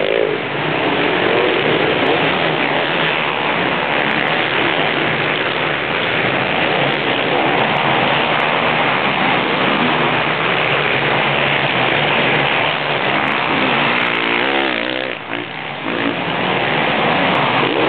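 Several motocross bikes racing at once: a dense, continuous din of engines running hard and revving. About fourteen seconds in, one bike's rev rises and falls clearly, followed by a brief dip in loudness.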